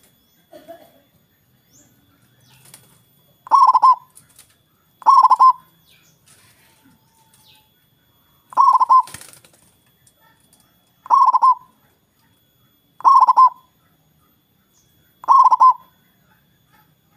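Zebra dove (perkutut) cooing: six loud calls of rapid, trilled coos, each under a second long and a couple of seconds apart, with a brief sharp click during the third.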